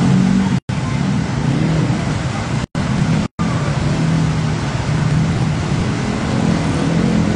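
Cars and motorbikes driving through floodwater: engines running over a steady noisy wash, with a low engine hum throughout. The sound cuts out to silence three times, briefly, in the first half.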